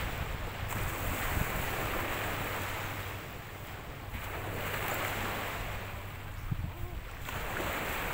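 Small sea waves washing in the shallows, the surf noise swelling twice as waves come in, with wind rumbling on the microphone.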